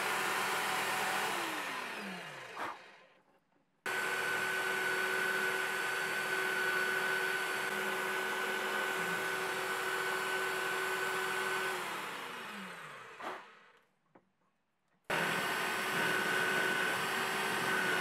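Electric drill on a drill-press stand running at speed with a steady whine and hiss while drilling a small hole in an aluminium block. It is switched off twice, and each time its pitch falls as it winds down to a stop, with a click near the end, before it starts again abruptly.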